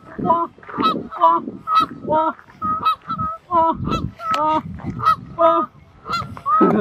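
Canada geese honking over and over, short nasal calls coming about two a second.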